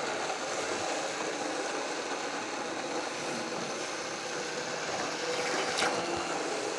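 Hand-held immersion blender running steadily in a pot of tomato sauce, its blade chopping the tomato chunks into a purée. A short knock comes about six seconds in. The chopping noise is a sign that pieces are still left; once it stops changing, everything is small.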